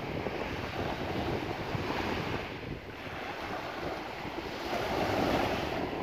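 Small sea waves washing up onto a beach, swelling twice, about two seconds in and again near the end. Wind buffets the phone's microphone with a low rumble.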